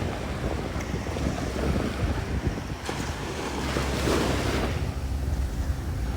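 Small waves washing onto a sandy beach, with wind buffeting the microphone in a low rumble. One wash swells louder about four seconds in.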